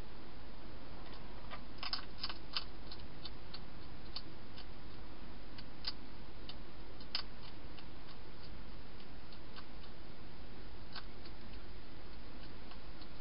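Wild hedgehog crunching dry food inside a plastic feeding box: scattered sharp clicks, thickest about two seconds in, over a steady hiss.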